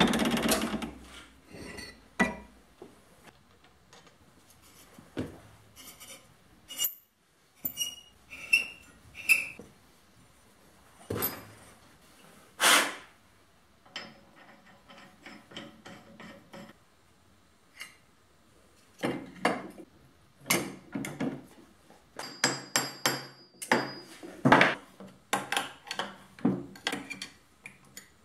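Hand work with metal parts and tools: scattered knocks, taps and clinks, some ringing briefly, with quiet gaps between and a busier run of knocks over the last third. A loud steady noise cuts off at the very start.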